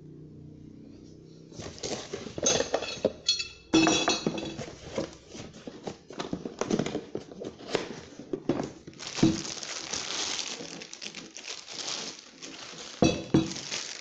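Clear plastic bag crinkling and rustling in irregular crackles as it is pulled off a new angle grinder, starting about a second and a half in.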